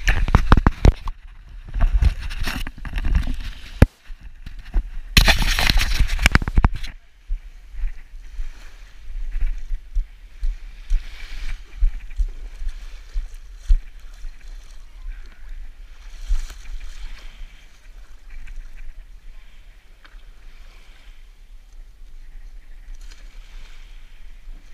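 Loud buffeting and rubbing on the action camera's microphone for the first seven seconds, then quieter, uneven sloshing and splashing of shallow water as someone wades beside an inflatable kayak.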